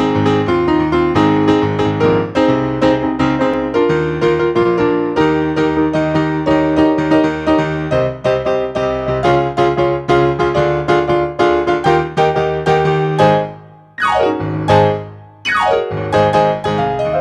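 Piano music after the benediction: a steady flow of struck notes and chords. About thirteen seconds in, it drops away briefly, then comes back with two quick falling sweeps.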